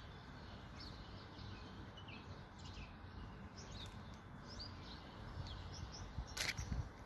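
Small birds chirping in short, quick calls over steady low background noise, with a brief rustle near the end.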